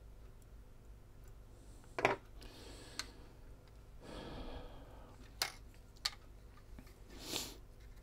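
Small plastic camcorder parts and tools being handled on a work desk during disassembly: four sharp clicks spread over several seconds, with two short soft rushing sounds between them.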